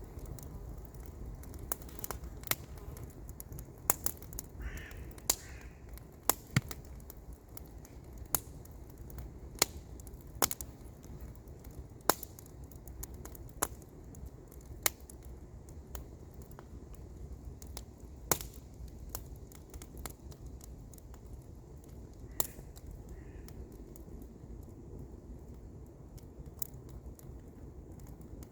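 Wood campfire crackling: sharp pops at irregular intervals, a dozen or so louder ones, over a steady low rumble.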